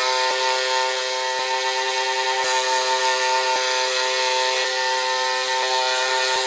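Scroll saw running with a steady hum as its thin blade cuts a curve through a block of wood, with faint ticks about once a second.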